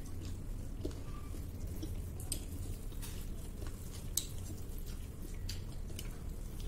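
Eating sounds: scattered soft clicks and smacks of chewing and of fingers mixing rice and pork curry on plates, over a steady low hum.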